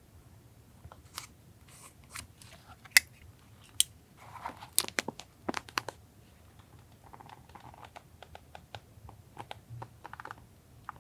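Paper and stationery being handled for collage journaling: scattered light taps and clicks, with a busier stretch of paper crinkling and rustling about four to six seconds in.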